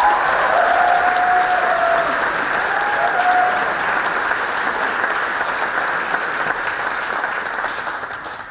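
A large audience applauding steadily to welcome a speaker, fading out near the end.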